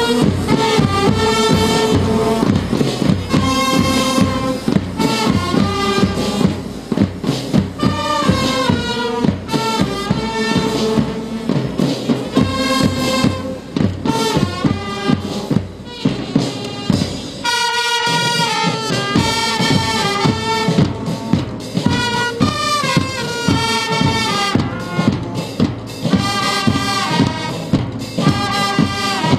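Marching band playing a tune: brass instruments carry the melody over side drums beating a steady march rhythm.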